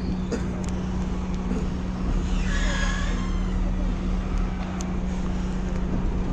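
A small passenger ferry's diesel engine running with a steady low hum and rumble. A brief, higher wavering squeal rises over it about two and a half seconds in.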